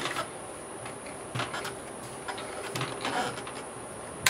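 Faint clicks and knocks of a scoped air rifle being handled as it is shouldered and aimed, then one sharp crack near the end.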